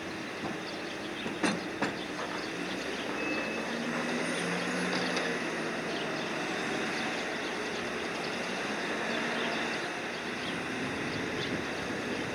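Steady running of cargo-handling machinery as the ship's crane unloads deck cargo, with two sharp metallic knocks about a second and a half in.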